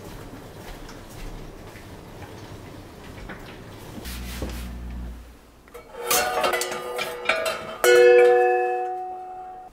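Metal cookware and utensils clinking against the metal S-hooks they hang from as they are handled. About eight seconds in comes a louder metallic clang that rings on in several clear tones and fades until it cuts off.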